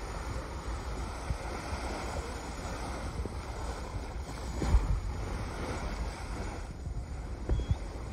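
Sea waves washing at the shore, with wind buffeting the microphone in uneven low rumbles.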